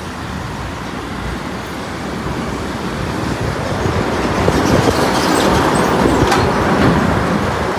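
Road and traffic noise from a vehicle driving along a highway, growing steadily louder as it comes up beside a lorry, with a brief clatter about six seconds in.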